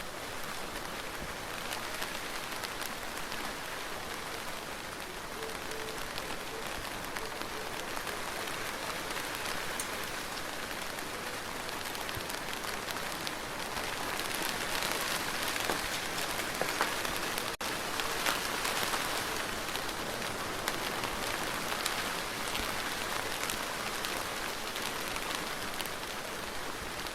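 Steady rain falling, a continuous hiss with many individual drop ticks. It grows somewhat louder in the middle and eases again near the end.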